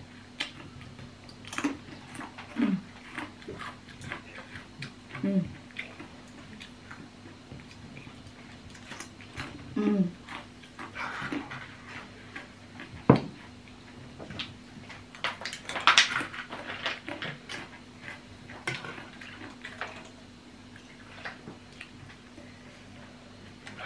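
Eating sounds: a metal spoon and fork clinking and scraping against soup bowls, with slurping of noodle soup. There is one sharp clink about 13 seconds in.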